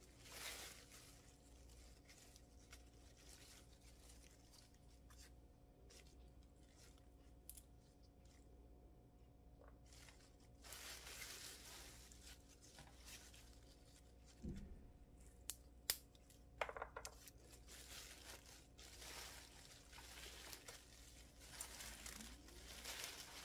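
Faint rustling of fresh chwinamul (Korean aster greens) being handled, with scattered small crisp snaps as the tough stem ends are broken off by hand. The snapping and rustling come more often in the second half.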